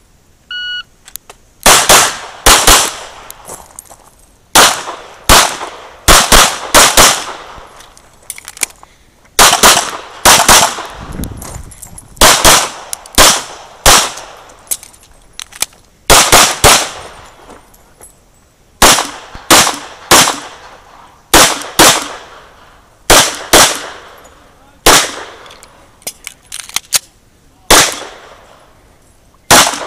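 A shot timer gives one short beep, then a CZ 75 SP-01 pistol fires a long string of shots, mostly in quick pairs and clusters with short pauses between them.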